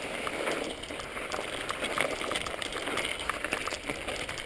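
Mountain bike riding over snowy, rocky singletrack, heard close up from the bike: a steady hiss of tyres on snow mixed with a rattle of many small clicks and knocks from the bike jolting over the trail.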